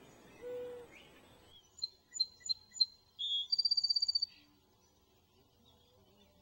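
Birds calling: one low drawn-out call about half a second in, then a songbird's few separate high chirps followed by a fast high trill, ending a little past the middle.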